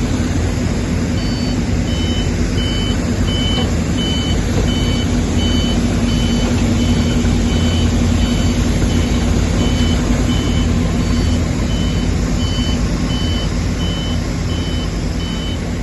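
Electric forklift's reversing alarm beeping evenly, about three beeps every two seconds, starting about a second in, over a steady low rumble and hum.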